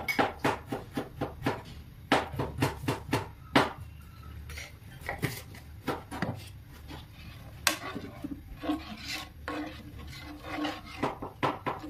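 A steel skimmer ladle and spoon clinking and scraping against a metal cooking pot, in quick runs of light knocks, as salt is added and stirred into a thin gravy before it comes to the boil.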